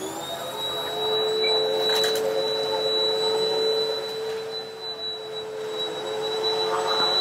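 Hoover WindTunnel T-Series upright vacuum cleaner's motor spinning up as it is switched on, then running at a steady pitch with a high whine over the hum.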